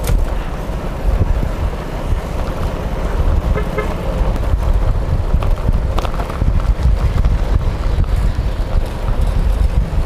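Wind buffeting the microphone: a loud, steady low rumble with gusty flutter.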